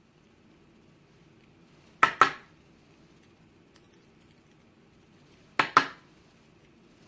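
Small metal lock parts and tools clicking together in two quick double clicks, about two seconds in and again near the end, with a few faint ticks between, as pins and springs are taken out of a lock's chambers.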